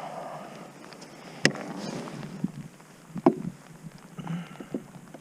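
A few sharp knocks and smaller clicks on a kayak, with soft rustling between them, while a freshly landed catfish is handled. The loudest knock comes about one and a half seconds in, and another a little after three seconds.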